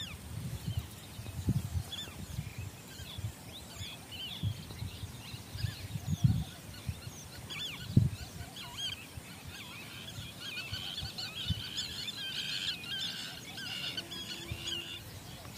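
Birds calling with many short high chirps, thickening into a busy chattering chorus for the last few seconds, over irregular low rumbling thumps.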